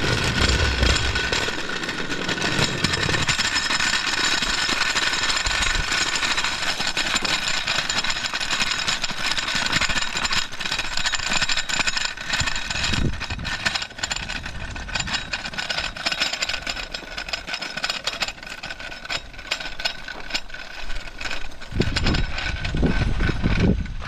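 Aluminum floor jack on large phenolic caster wheels being pushed along by its handle, its wheels and frame making a continuous rattling clatter as it rolls over concrete and then dirt, with a few low thumps near the end.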